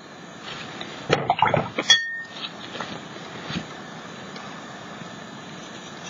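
Art supplies handled on a craft table: a brief clatter of small hard objects about a second in, ending in a single ringing clink like glass, then faint scattered ticks.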